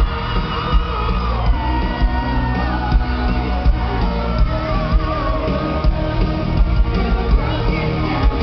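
Live pop-rock band performance: singing over electric guitar and a heavy, steady drum beat, with the crowd shouting along.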